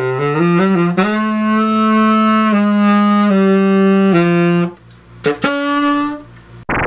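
Freshly overhauled 1927 Martin Handcraft tenor saxophone being played: a quick run of rising notes, one long held note, a short pause, then two short notes. Right at the end a loud burst of synthesizer outro music cuts in.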